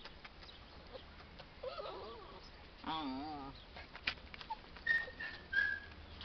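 Small puppy whining: a few short, high-pitched whines, some wavering, with light scuffs and clicks in between.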